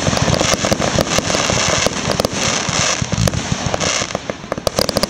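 Aerial fireworks bursting overhead, with a dense run of rapid crackles and pops that eases slightly about four seconds in.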